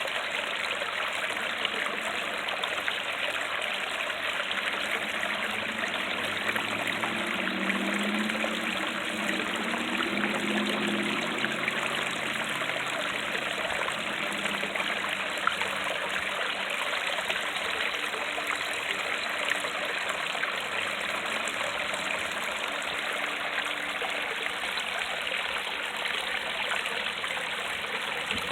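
Small creek waterfall running over rocks: a steady rush of splashing, trickling water.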